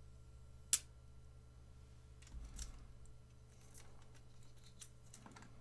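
Protective plastic film being picked at and peeled off the screen of a DJI Pocket 2 camera: one sharp click just under a second in, then faint crackling and a scatter of small clicks.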